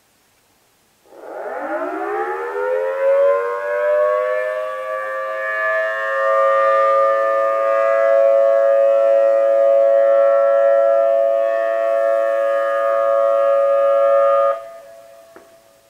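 Outdoor civil defense warning sirens sounding a monthly test: the sirens wind up from a low pitch to a steady, chord-like wail, hold it for about twelve seconds, then stop suddenly near the end and fade away.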